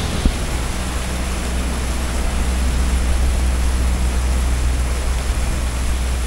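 A river ferryboat's engine droning steadily, heard on board, under an even rushing hiss of wind and water.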